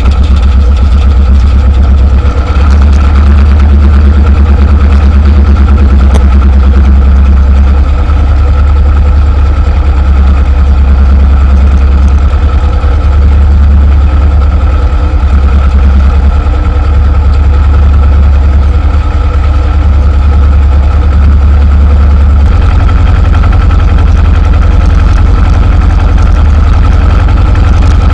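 T-25 tractor's two-cylinder air-cooled diesel running steadily under load while driving a rotary tiller, with a loud, continuous low drone whose note changes slightly about 22 seconds in.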